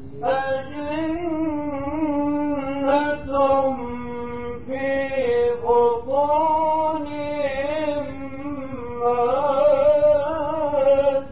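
Male Quran reciter chanting one long, ornamented phrase in the melodic mujawwad style, holding notes with wavering turns and rising in pitch toward the end. It is an old recording with a dull top end.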